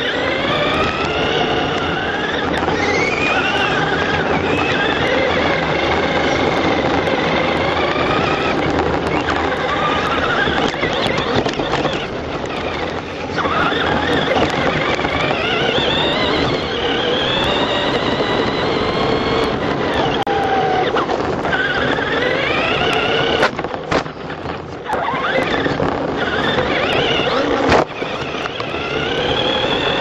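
Electric remote-control truck motor whining, rising in pitch over and over as the truck accelerates down the straights, over a steady gravelly noise of tyres on dirt. A few short sharp knocks come near the end.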